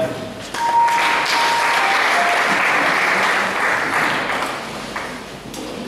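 Congregation clapping, a dense run of applause that eases off near the end.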